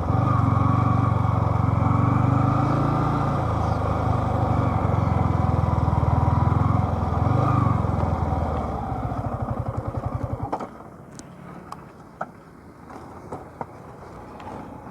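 Motorcycle engine running, its revs rising and falling a little, then slowing into separate chugs and cutting off abruptly about ten and a half seconds in as it is switched off. A few sharp clicks follow.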